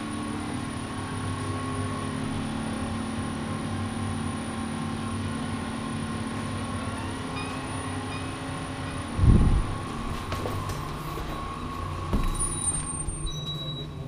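Steady hum of running building mechanical equipment, such as ventilation machinery, holding several steady tones. A single heavy thump comes about nine seconds in, and a few knocks and a brief high squeak follow near the end.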